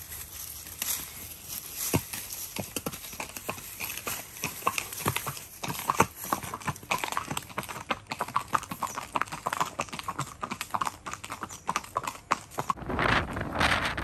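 Horse hooves clip-clopping in an uneven run of sharp strikes, from the Arabian horses being ridden, with a brief rush of noise near the end.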